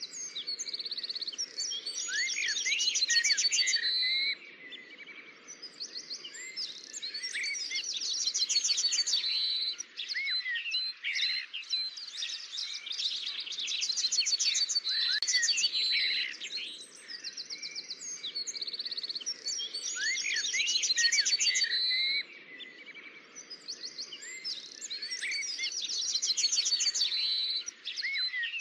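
Songbirds singing: many quick chirps and sweeping calls with bursts of fast trills, the busy phrases coming back about every six seconds over a faint background hiss.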